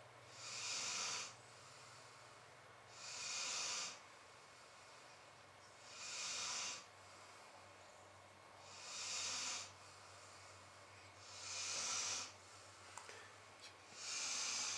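Slow, regular breathing close to the microphone: a soft hissing breath about every two and a half seconds, six in all.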